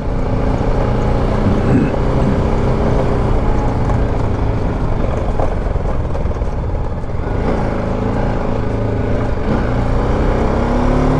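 BMW G310 GS single-cylinder motorcycle engine running as the bike rides along slowly, its pitch rising and falling a few times in the second half as the throttle changes.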